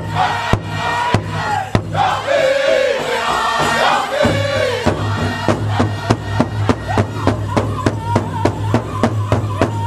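Powwow drum group singing a chicken dance song in chorus, several drummers striking a large hide powwow drum in unison. About four seconds in, the drumbeat quickens to a steady three or so strokes a second.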